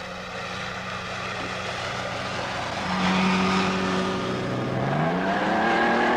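Cartoon sound effect of a motorboat engine running at speed and growing louder. About five seconds in it revs up in a rising whine.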